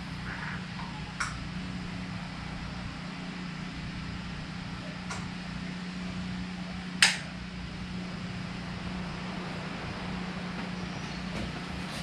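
A steady low hum, with a few sharp clicks and knocks from hands working on a motorcycle, the loudest about seven seconds in.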